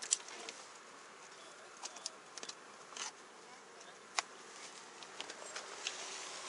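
Scattered light clicks and knocks from things being handled and moved about inside a car during a flashlight search, over a steady hiss; the sharpest clicks come right at the start and about four seconds in.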